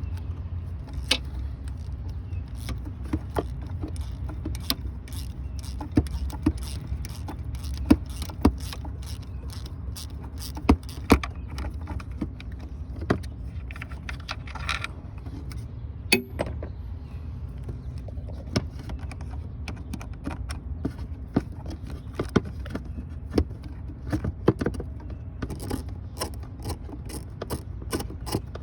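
Hand ratchet clicking in irregular spells and metal tools clinking as long bolts are backed out of a 2.4-litre engine's thermostat housing, with a quicker run of clicks near the end. A steady low hum runs underneath.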